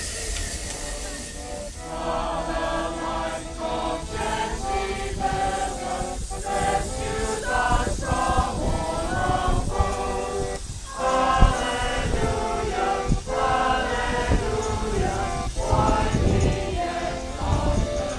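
A group of voices singing a song together from song sheets. The singing starts about two seconds in, in long held notes.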